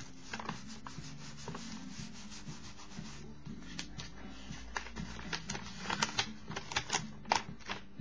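Paper rustling and rubbing as sketchbook pages are turned and handled with a paper towel. The rustles come thicker and louder in the second half.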